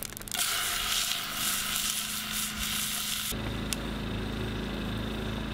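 Steak sizzling as it is laid on a grill over a wood fire, a loud even hiss that cuts off suddenly about three seconds in. After that comes a steady low hum.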